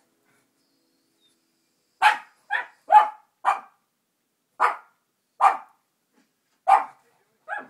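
Pug barking: about eight short, sharp barks coming irregularly, starting about two seconds in after a silent start.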